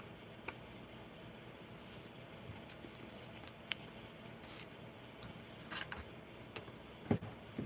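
Scattered small clicks and rustles of handling, with a louder knock near the end, over faint steady room noise.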